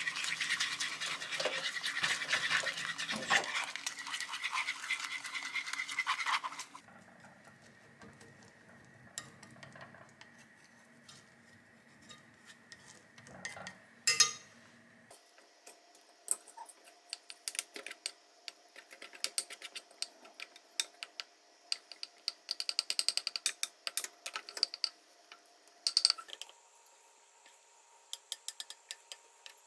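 Beaten egg sizzling and crackling in a hot nonstick frying pan for the first seven seconds or so. It then goes quiet. From about the middle onward, a spatula stirs and scrapes the setting egg against the pan in many short scrapes.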